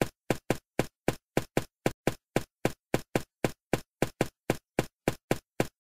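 Footstep sound effect: a quick, even run of short tapping steps, about four a second.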